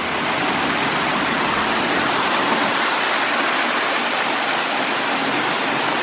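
Rushing water from a waterfall and the boulder-strewn stream below it: a steady, even rush.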